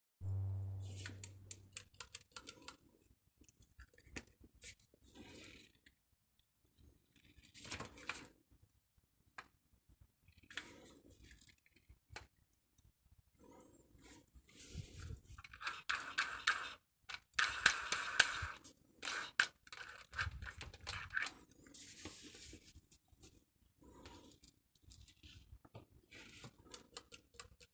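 Handling noise of a Bort BSM-250X drill-driver: scattered clicks, plastic scrapes and rustling, busiest past the middle. A low hum fades away over the first two seconds.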